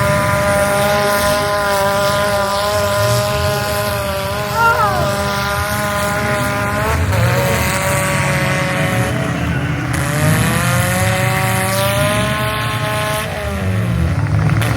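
Demolition derby cars' engines running hard at high revs, the pitch holding, dropping about halfway through, then rising and falling again as the drivers get on and off the throttle, over a low engine rumble. A brief squeal comes about a third of the way in.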